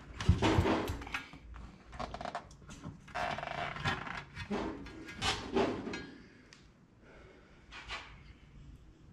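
Rubber inner tube being worked into a tractor tire on a steel rim: irregular rubbing and knocks of rubber against the tire and metal, loudest about half a second in and dying down after about six seconds.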